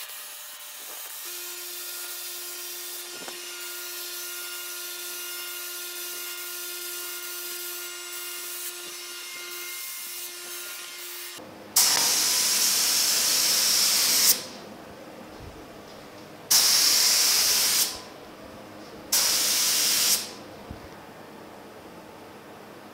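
Gravity-feed spray gun spraying reduced polyester primer: three loud bursts of air hiss, the first about two and a half seconds long and the others a little over a second, as the trigger is pulled and let go. Before them, about the first eleven seconds hold a quieter steady hiss with a faint hum.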